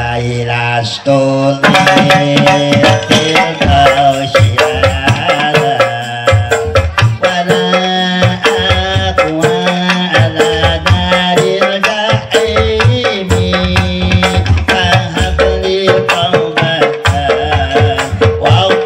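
Qasidah modern music: a sustained melody over fast hand-drum percussion, with the drums coming in about a second and a half in.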